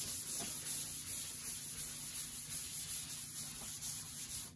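Cloth rag wiping chalk off a chalkboard: a steady rubbing hiss in repeated strokes.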